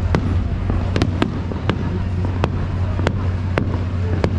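Fireworks going off: about eight sharp bangs at irregular intervals over a steady low hum.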